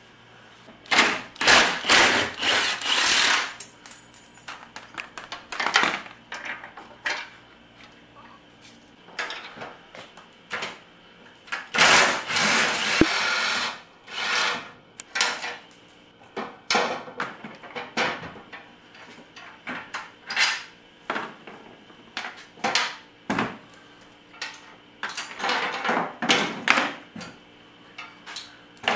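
Workshop clatter of hand tools and metal parts being handled: a string of knocks, clanks and scrapes, with two longer noisy stretches, one about a second in and one near the middle.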